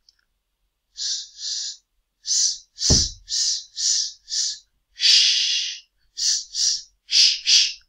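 A man voicing the unvoiced phonics sounds 's' and 'sh' over and over: about a dozen short hisses, with one longer 'shh' about five seconds in. There is a soft thump about three seconds in.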